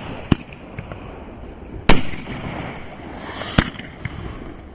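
Consumer firework cakes going off: three sharp bangs about a second and a half apart. The one near two seconds in is the loudest and has a trailing tail.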